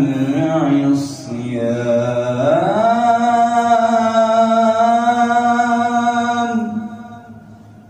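A man reciting the Quran in melodic tajweed style, a single unaccompanied voice. About two and a half seconds in his voice slides up into one long held note, which stops about a second before the end.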